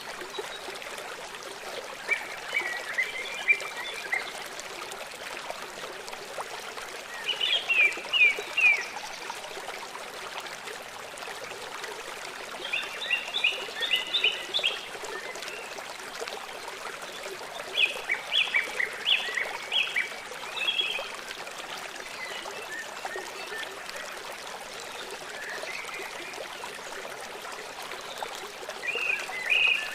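Steady rush of a flowing stream, with a songbird singing short chirping phrases every few seconds over it.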